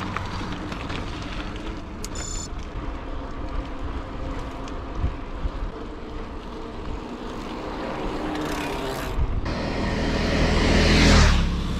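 Riding noise from an action camera on a moving bicycle: wind on the microphone and a steady rumble. A motor vehicle swells up to pass close by near the end, with a brief high squeak about two seconds in.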